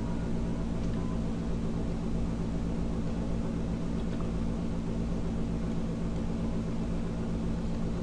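Room air conditioner running with a steady hum and hiss, no change throughout.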